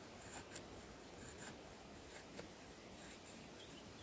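A SOG Tech Bowie knife's hollow-ground AUS-8 steel blade shaving a soft pine plank: several faint, short scraping strokes.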